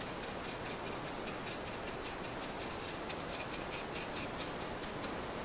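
A brush dabbing and scrubbing boiled linseed oil into the holes of a bare wooden gun stock: irregular soft ticks and rubbing, several a second, over a steady hiss.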